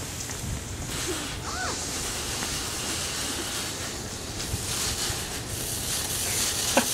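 Steady background hiss outdoors, with a faint short rising-and-falling call about a second and a half in.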